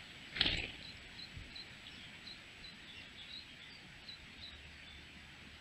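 A brief loud whoosh of wings about half a second in. Then a small bird repeats a short high call about three times a second.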